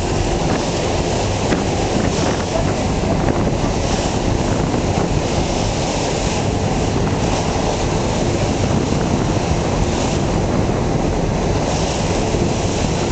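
Motorboat running at full speed: steady engine and rushing water, with wind buffeting the microphone.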